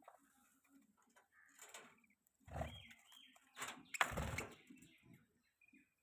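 Budgerigars chirping softly in short high chirps, with three louder bursts of rustling noise about halfway through.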